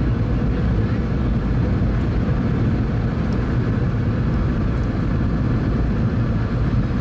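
Steady low rumble of a Boeing 717's cabin noise while the airliner rolls along the runway: its Rolls-Royce BR715 engines and the wheels on the runway, heard from inside the cabin.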